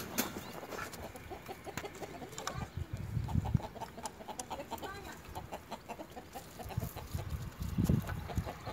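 A flock of domestic chickens clucking in many short, overlapping calls while they feed, with scattered sharp ticks of beaks pecking among chopped greens. Two low rumbles come through, about three and eight seconds in.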